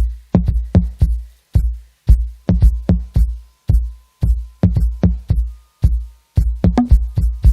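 Realme C30 ringtone: an electronic drum-machine beat of deep kick drums with booming low tails, about two to three hits a second.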